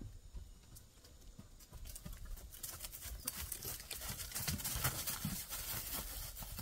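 Hooves of a Fjord horse and a donkey treading on dry wood-chip mulch and leaves: irregular crunches and thuds that grow louder a couple of seconds in as the animals come close, busiest in the middle.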